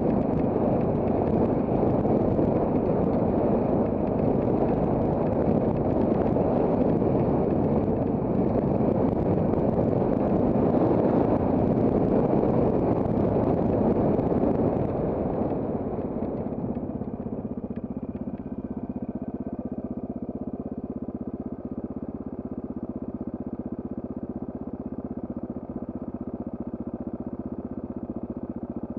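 Onboard sound of an off-road trail motorcycle being ridden, its engine and ride noise loud, then easing off about halfway through to a steady idle.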